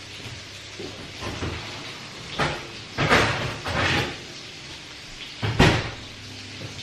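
Kitchen oven door being opened and a tray of roasted vegetables handled, a few short scraping clatters, then the door shut with a sharp thump about five and a half seconds in.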